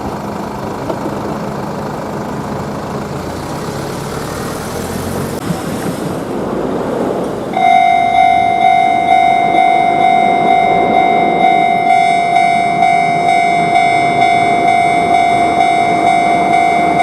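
A train passing, a steady rush of wheel and track noise, then about seven and a half seconds in a Japanese railroad crossing warning bell starts suddenly, ringing its repeating 'kan-kan' tone about one and a half times a second.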